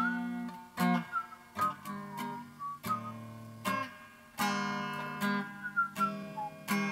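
Background music: strummed acoustic guitar chords, struck every second or so, with a sliding melody line above them.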